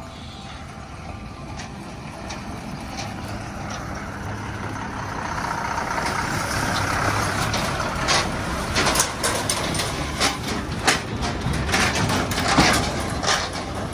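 Heavy diesel lorry carrying a borewell compressor driving slowly past on a dirt track, its engine growing louder as it comes closer. From about eight seconds in, sharp crackling and snapping sounds over the engine.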